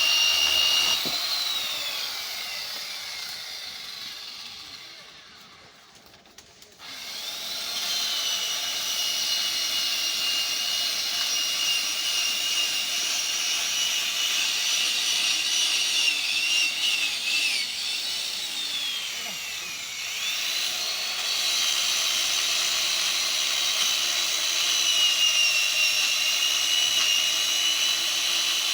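Large two-stroke Stihl chainsaw cutting through a tamarind trunk at full throttle. About a second in the revs drop off and the sound fades away for a few seconds. It then comes back abruptly at high revs, dips and climbs again twice near the middle, and keeps cutting steadily.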